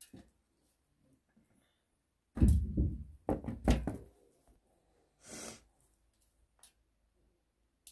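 A quick cluster of heavy knocks and thumps, loudest about two and a half to four seconds in, then a short burst of noise around five seconds in.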